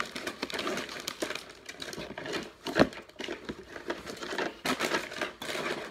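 Plastic snack packaging crinkling and rustling as it is handled, with one sharp knock a little under three seconds in.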